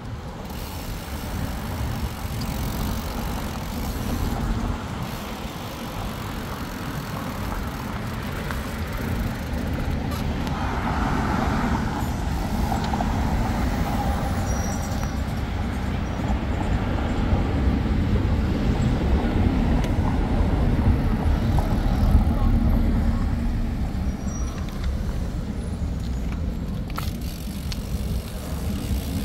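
Steady low rumble of city traffic, swelling and easing slightly.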